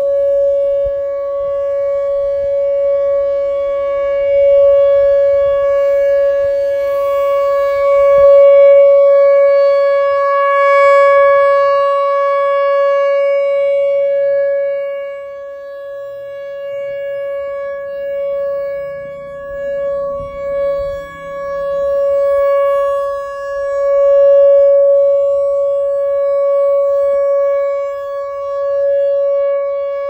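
Pole-mounted outdoor tornado warning siren sounding a steady tone that holds one pitch. Its loudness swells and fades as the rotating horn sweeps around, loudest about a third of the way in and again about three-quarters through.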